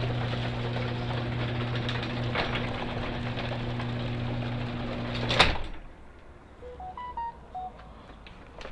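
Garage door opener motor running as the door closes: a steady hum with rattle, ending about five seconds in with a loud thud as the door shuts and the motor stops. A few short electronic beeps follow near the end.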